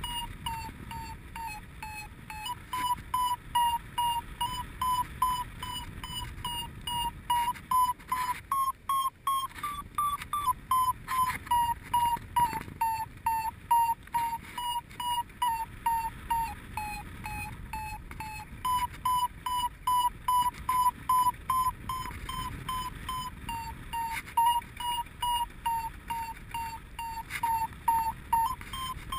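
Paragliding variometer beeping steadily, about three short beeps a second, its pitch climbing briefly about ten seconds in and drifting lower later on: the climb tone that signals the glider is rising in lift. Faint wind rush on the microphone underneath.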